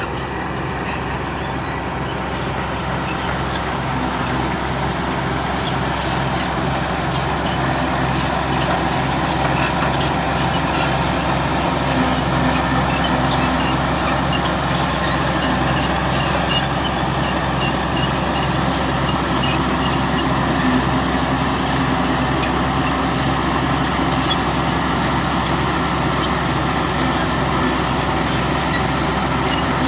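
Bulldozer's diesel engine running steadily with a regular low pulsing, overlaid by many small high-pitched clicks and squeaks, growing a little louder over the first several seconds.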